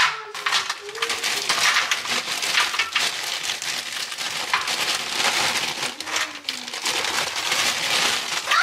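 Plastic bag of frozen food crinkling and rustling with many small rattles, dense and continuous.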